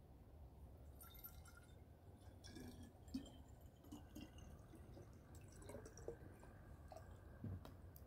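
Faint trickling and dripping of water being poured from a plastic bottle into a clear glass bottle, with small irregular splashes and clicks as the bottle fills.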